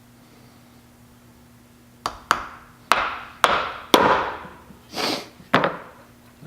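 Hammer driving nails: about seven sharp blows in quick, uneven succession, starting about two seconds in, each with a short ringing tail.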